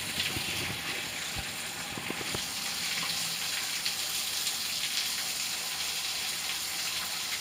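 Steady rain falling, an even hiss with a few faint taps in the first couple of seconds.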